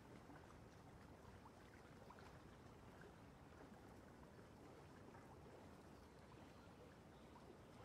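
Near silence: a faint steady hiss, with faint soft ticks from a small brush dabbing acrylic paint onto the canvas.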